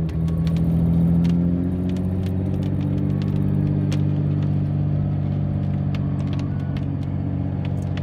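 Camper's engine and road noise heard from inside the cab while driving on a wet road: a steady low drone whose pitch dips slightly a second or two in, with scattered small ticks.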